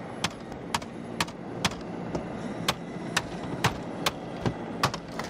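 Sledgehammer striking a BMW engine bay again and again: short, sharp knocks, about two a second.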